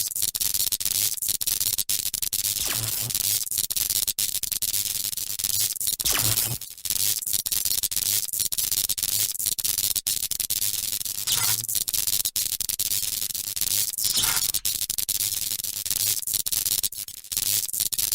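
Electricity sound effect: continuous sizzling, crackling electrical static with a rapid spray of clicks. A low buzzing hum swells up a few times and fades again, and the crackle briefly drops out twice.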